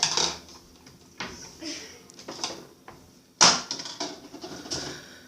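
Toy balls and play items being put away into a cupboard: a few light knocks and rattles, then one louder knock about three and a half seconds in.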